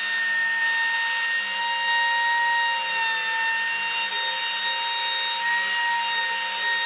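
DeWalt compact trim router running at full speed, a steady high whine with a rasping cutting noise as the bit trims the edge of glued-up plywood layers flush and clears glue residue. The pitch sags slightly about three seconds in as the bit takes load.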